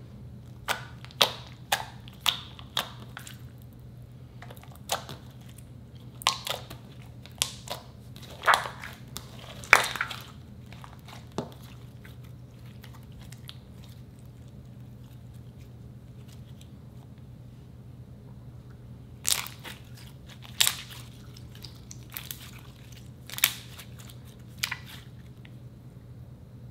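Glossy slime squeezed and stretched by hand, giving sharp wet pops and clicks as trapped air bursts. The pops come in two clusters with a quiet stretch between, over a steady low hum.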